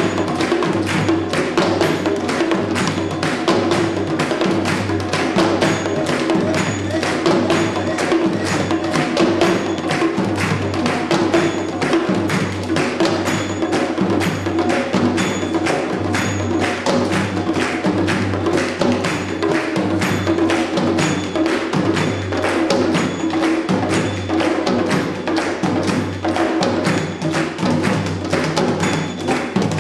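Sri Lankan traditional drums played as an ensemble in a fast, dense rhythm of several strokes a second, with a steady held tone underneath.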